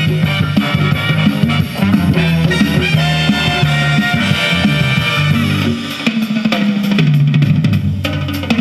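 Swing-style instrumental music with a drum kit, played back from a cassette on the Fisher PH-480 boombox's deck; the drums come to the fore near the end.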